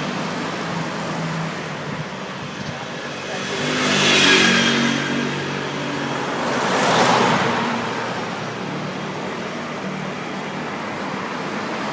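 Road traffic: vehicles passing by, one swelling and fading about four seconds in and another about seven seconds in, over a steady engine hum.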